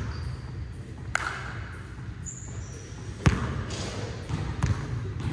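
Basketball bouncing on a hardwood gym floor: several sharp bounces, with short sneaker squeaks, echoing in a large hall.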